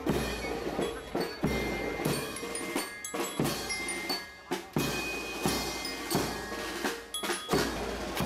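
Youth marching drum corps playing snare drums and a bass drum in a steady marching beat, with heavy strokes about twice a second.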